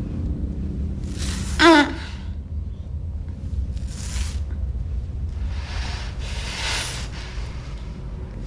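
A woman's short gasping cry that wavers and falls steeply in pitch about a second and a half in, over a steady low rumble, followed by a few breathy hisses of heavy breathing.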